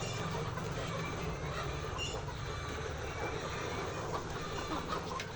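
Steady low mechanical hum from an engine or motor, with a few faint clicks.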